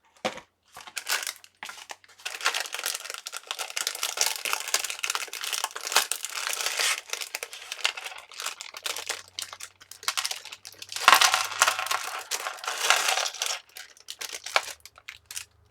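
A crinkly bag being handled and opened, rustling and crackling in long stretches with scattered small clicks, as little goodies are taken out of it.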